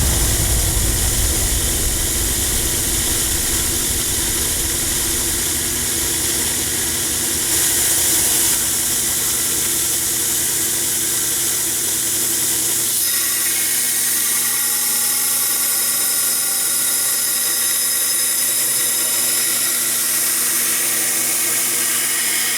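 Belt grinder running and grinding the forged steel blade of a rasp knife: a steady hiss over the motor's hum. The sound shifts about a third of the way in, and the low rumble drops away a little past halfway.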